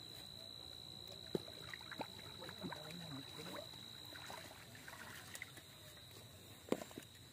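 Faint water splashing as a hooked fish thrashes at the surface and is scooped into a landing net, with a few sharp clicks. A steady high-pitched whine runs through the first half and stops.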